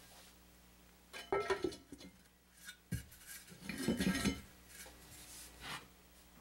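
Heavy cast iron Dutch oven lid clanking onto the pot: a few ringing clinks about a second in, a sharp knock just before the middle, then a louder clatter and scrape as the lid settles on the rim.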